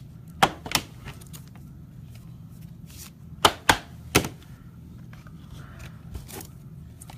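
A few sharp knocks and clicks of things being handled on a desk: two about half a second in, then three more close together a little after three seconds, over a low steady hum.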